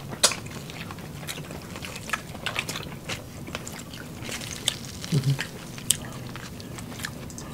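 People eating boiled seafood and roast beef with their hands: chewing, lip smacks and scattered short wet clicks of food being bitten and pulled apart. A brief low hum of a voice comes about five seconds in.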